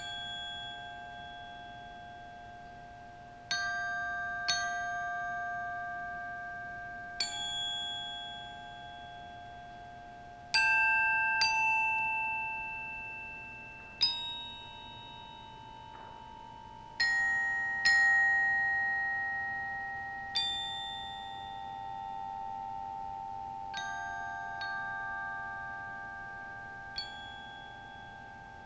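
Glockenspiel played slowly with mallets: sparse strokes of two or three notes at a time, one every few seconds, each left ringing and slowly fading so the notes overlap.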